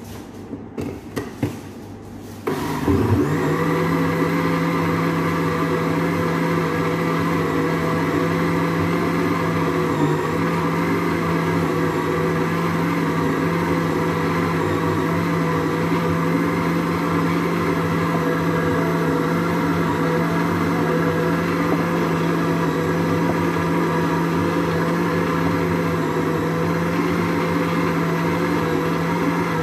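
Countertop blender switched on about two and a half seconds in and running steadily at one speed, after a few knocks as the jug is set in place.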